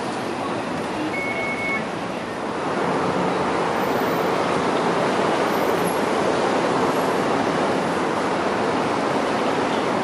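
Steady rushing outdoor traffic noise, a little louder from about two and a half seconds in, with a brief high beep about a second in.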